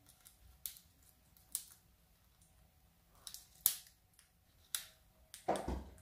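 Quaker parrot's beak biting and crunching a wicker basket toy: about half a dozen sharp, irregular snapping clicks of the cane, the loudest a little past the middle, then a longer crunching rustle near the end.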